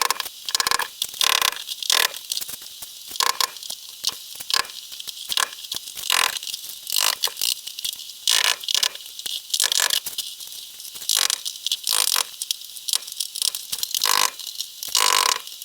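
Hammer chopping at Durock cement backer board to free it from its roofing nails: an irregular run of sharp knocks, about one or two a second.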